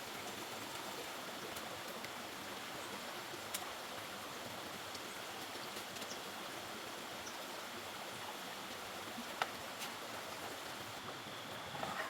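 River water running steadily, with two sharp clicks, one about three and a half seconds in and one about nine seconds in.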